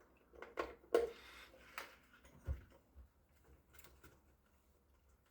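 A few irregular sharp clicks and light knocks, the loudest about a second in, with a dull thump a little later, as an electrical connector is plugged into a tachograph unit on the bench.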